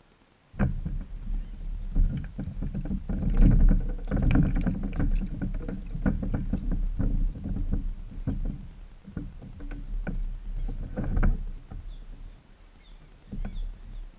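A person climbing aboard a small homemade catamaran: footsteps and knocks on its plywood deck over a low bumping of the boat. It starts suddenly about half a second in and eases off near the end.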